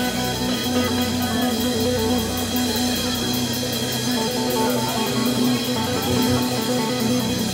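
Live blues band playing: electric guitars and a bass guitar over a drum kit, with a regular cymbal beat.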